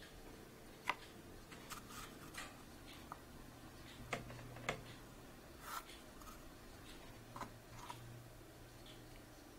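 Faint, scattered clicks and light rustles of jigsaw puzzle pieces being handled and pressed into place on a wooden table, with a sharper click about a second in.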